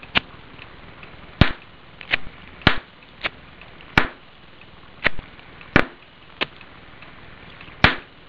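Sharp pops of oxyhydrogen (HHO) gas bubbles from a small water electrolysis cell igniting: about ten bangs at uneven gaps of half a second to a second and a half, some louder than others.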